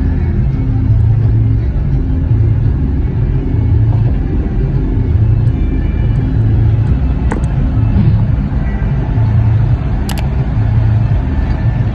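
Engine and road rumble of a moving vehicle, heard from inside the cabin: a steady low drone, with a few brief clicks about seven and ten seconds in.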